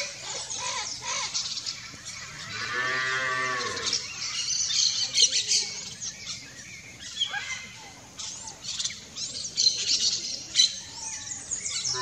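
A cow moos once, a single long low call about two and a half seconds in. Birds chirp and call in high, quick notes throughout.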